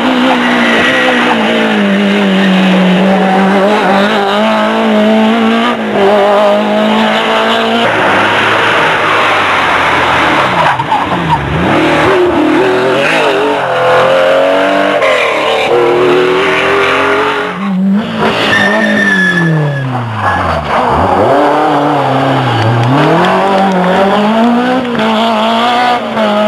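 Rally cars on a special stage: engines revving hard and dropping back through the gears again and again, with tyres squealing. The sound jumps abruptly several times from one car to the next.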